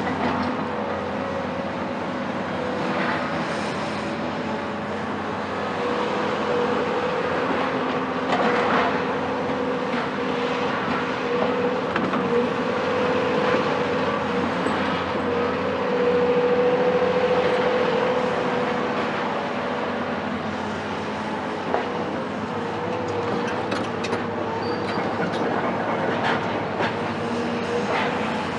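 A Cat 374 excavator's Cat C15 ACERT diesel engine runs steadily with a high whine under demolition work. Crunches and knocks of breaking masonry and falling rubble sound every few seconds.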